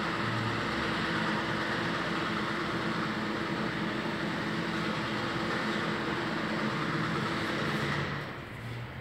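Steady machine noise with a low hum, dipping near the end.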